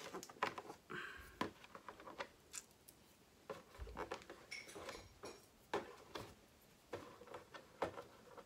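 Hands handling the plastic body shell of a radio-controlled truck: scattered light taps, clicks and brief rustles.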